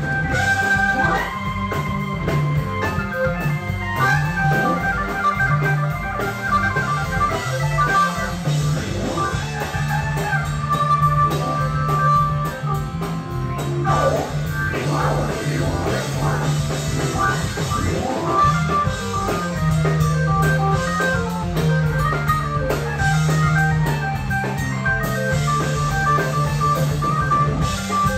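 Live rock band playing an instrumental passage: an organ-toned keyboard lead over electric guitars, bass and drums, with sweeping slides in pitch about halfway through.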